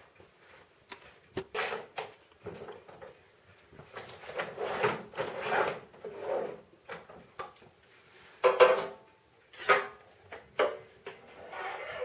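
Irregular clanks, knocks and scraping of snow blower parts and hand tools being handled during reassembly, with short metallic ringing after the loudest knock, about two thirds of the way in.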